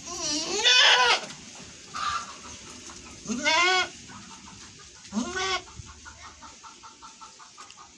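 A goat bleating three times in long, wavering calls, with a shorter call in between; hens clucking in quick, steady succession through the later part.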